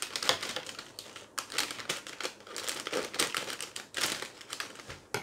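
Thin plastic cereal bag crinkling irregularly as it is handled and cut open with scissors, with many short sharp crackles.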